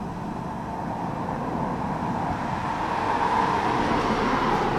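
Road traffic noise: a vehicle passing, its tyre and engine noise growing louder through the second half.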